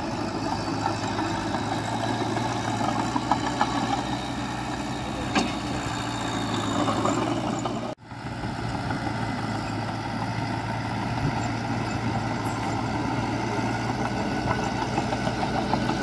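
Heavy diesel engine of earthmoving machinery running steadily. The sound cuts out for an instant about halfway through.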